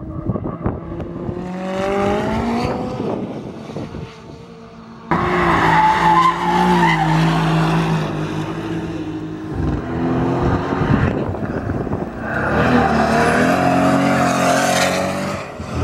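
Supercar engines revving hard and accelerating on a race circuit, across several short clips, their pitch climbing as the revs rise. In the middle a car drifts through a corner, tyres squealing under the engine.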